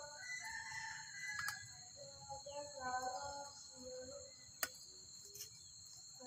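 A single sharp click a little past halfway through as a ring is pressed onto a brush-cutter blade, over faint background voices and a steady high-pitched hiss.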